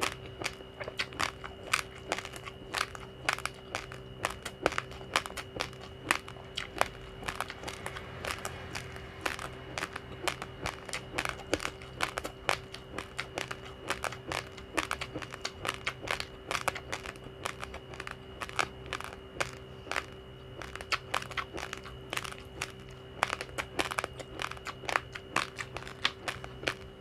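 Raw, uncooked rice grains being crunched and chewed between the teeth: rapid, irregular sharp crunches, several a second, with a steady faint hum and a high whine underneath.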